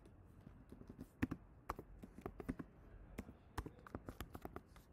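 Typing on a computer keyboard: a run of irregular key clicks, the loudest about a second in.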